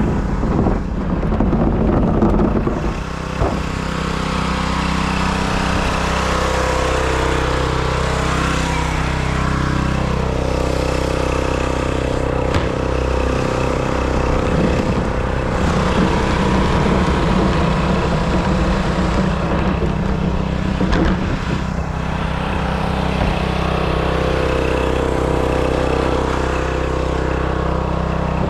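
Pressure washer running steadily with a constant mechanical drone, its pitch swelling and dipping slightly a few times.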